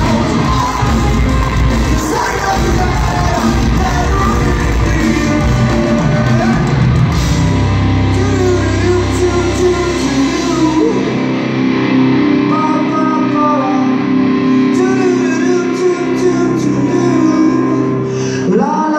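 Live rock band playing loudly with a male lead singer, heard through a large hall. About eleven seconds in, the drums and bass drop out, leaving the voice over held chords.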